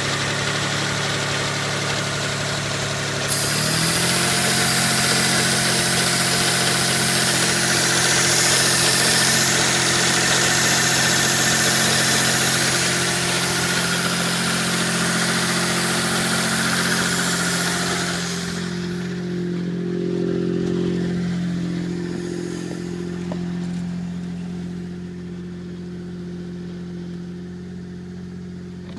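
Mitsubishi GTO twin-turbo V6 idling, its speed shifting slightly about four seconds in. A strong hiss over it drops away about eighteen seconds in. The noises are put down to a vacuum leak and lifter tick.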